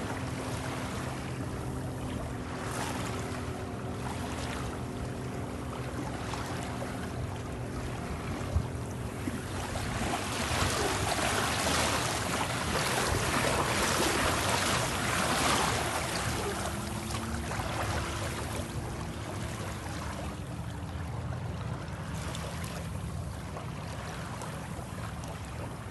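A steady motor hum under a rushing noise of water and wind, the rush swelling for several seconds midway.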